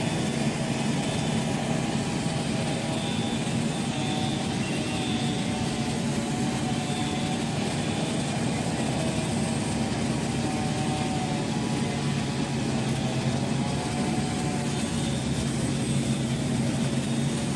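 Fire truck engines running at idle: a steady, even low drone.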